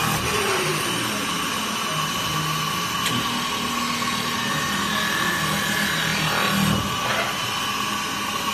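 CNC metal spinning machine running: the spindle turns a sheet-metal workpiece clamped between mandrel and tailstock, giving a steady mechanical whir with a constant high whine.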